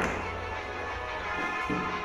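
Background music from a cartoon playing through a device's speaker, with a sudden sharp hit right at the start.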